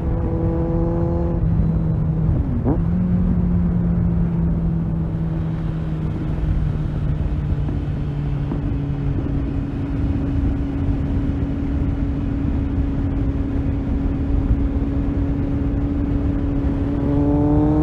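Kawasaki Z800 inline-four motorcycle engine running at steady cruising revs, with a quick dip and blip about two and a half seconds in, then revs climbing near the end as it accelerates.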